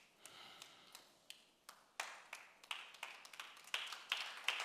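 Hand claps at a steady beat, about three a second, each ringing briefly in the hall, growing louder toward the end.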